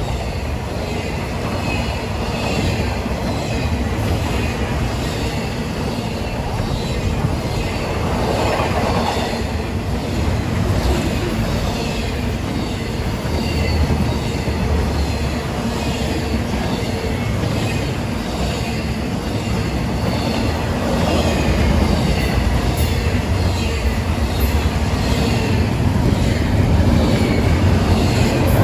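Train rolling past, its wheels rumbling over the rails with many short, repeated wheel squeals and a clickety-clack.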